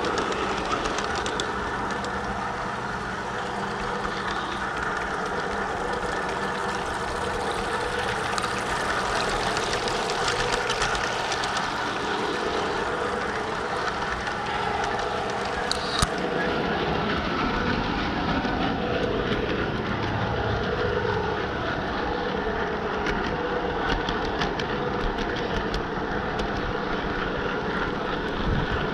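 Large-scale garden model train running steadily along its track, heard from a car riding on the train: continuous rolling noise of the wheels on the rails with a running hum, the pitch wavering somewhat in the second half.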